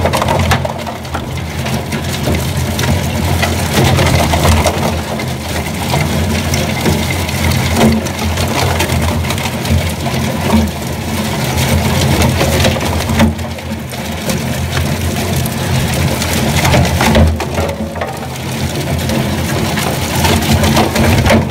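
Industrial shaft shredder crushing fittings: a steady low motor hum under continual cracking and crunching as the cutter shafts bite through the rings.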